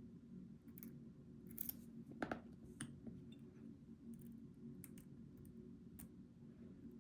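A hook pick working the pins of a Goal V18 pin-tumbler lock: scattered small metallic clicks and scrapes, with a couple of louder ones about two seconds in, over a steady low hum.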